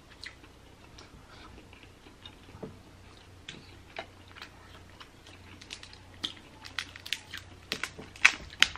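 Eating sounds: chewing snow crab meat, with sharp clicks and cracks of crab shell being pulled apart by hand. The cracks come thicker and louder near the end.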